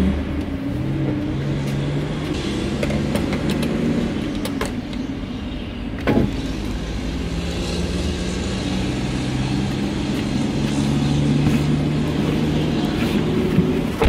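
A car engine idling, heard from inside the cabin as a steady low hum, with scattered light clicks and one short knock about six seconds in.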